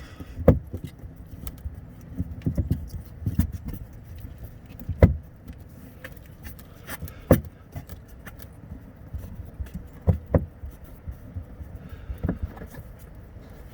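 Scattered sharp clicks and knocks, about eight spread out, as a Phillips screwdriver works on the screws of a car's wheel-well access cover, over a faint low rumble.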